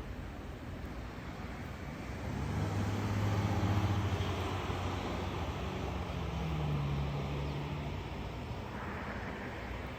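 A motor vehicle passing nearby: a low engine hum swells about two seconds in, is loudest a little later, and fades out near the end over a steady outdoor background hiss.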